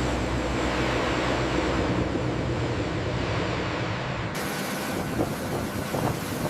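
Steady roar of running aircraft engines with a low hum under it. About four seconds in, the sound turns abruptly brighter and hissier, with a few faint clicks.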